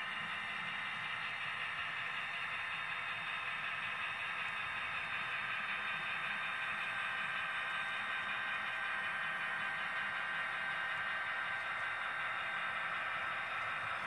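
Kato N scale SDP40F's ESU LokSound decoder playing its diesel engine sound through the model's small speaker, a steady hissy running sound, mixed with the freight cars' wheels rolling on the track.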